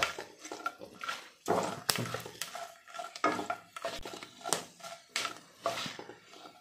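Silicone spatula stirring almonds and cashews in hot ghee in a nonstick kadhai: irregular scraping and tapping strokes against the pan, a couple of them sharper about two seconds in, over a faint steady hum.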